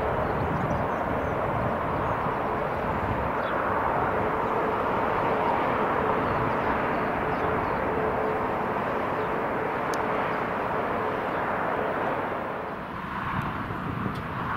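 Twin-engine jet airliner's engines at takeoff thrust: a steady, loud rumble with a held whining tone through it. Near the end the noise drops to a quieter, uneven rumble.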